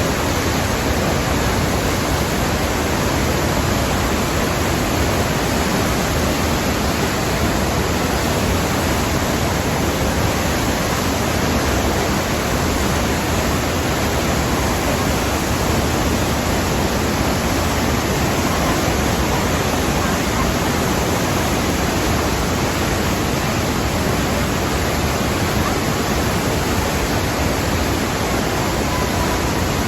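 Rhine Falls waterfall: a steady rush of falling water.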